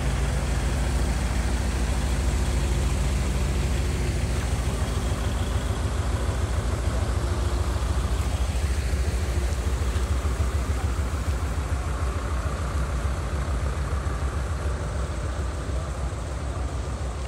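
Heavy diesel truck engine idling with a steady, even low rumble.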